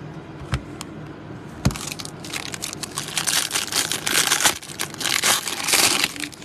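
A foil baseball-card pack wrapper being torn open and crumpled in the hands: two thumps in the first two seconds, then a dense crinkling rustle from about two seconds in.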